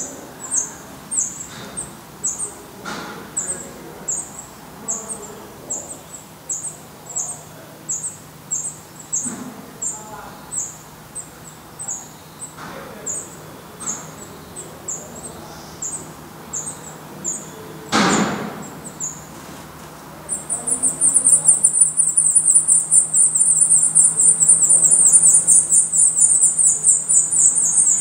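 Black redstart calls: a thin, high note repeated steadily, about one to two a second, with one brief louder knock about two-thirds of the way in. Soon after, the nestlings break into a loud, rapid, continuous high begging chatter as a parent comes to the nest to feed them.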